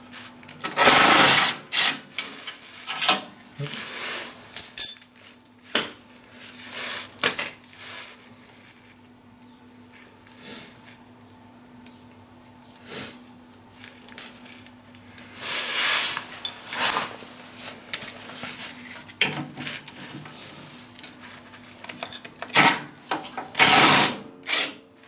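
Power tool with a socket run in short bursts of about a second, several times with pauses between, loosening the wheel fastener on a ride-on mower's rear axle.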